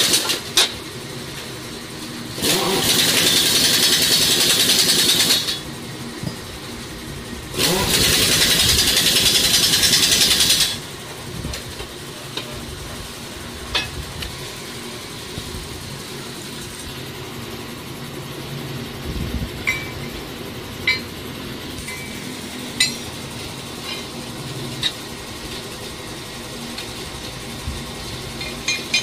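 Hydraulic track press running under load in two loud stretches of about three seconds each, starting and stopping abruptly, as it presses pins and bushings into excavator track links. Light metal clinks and taps follow as the parts are handled.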